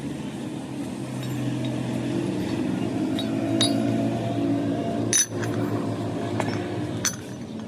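Several sharp metal clinks, as of tools or steel parts being handled, over a steady low machine hum. The loudest clink comes about five seconds in.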